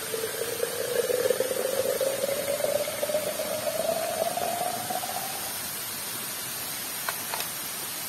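Steady rush of a nearby waterfall. Over it, a buzzy tone rises slowly in pitch for about five seconds and then stops, followed by two light clicks near the end.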